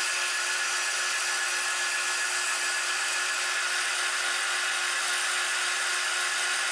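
Bandsaw cutting through a tacked-together block of steel, facing it flat: a steady hiss of the blade in the metal over a constant hum.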